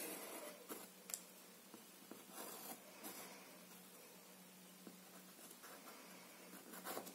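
Faint pencil scratching on paper as it traces around the edge of a chipboard rocket cutout, in soft, intermittent strokes.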